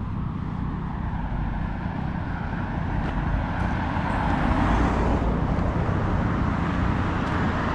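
Road traffic: cars driving past, tyre and engine noise swelling to its loudest about halfway through and staying up.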